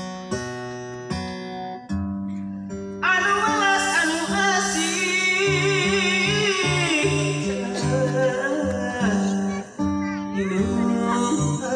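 Song music: a few separate plucked-string notes, then a voice comes in singing about three seconds in, over a changing bass line.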